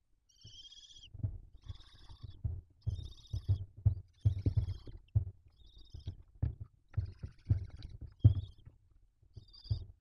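Barn owls in the nest box giving short hissing calls about once a second, over irregular thumps and scuffling as an adult barn owl shifts its body and wings against the wooden box and nest floor. The thumps are the loudest sounds.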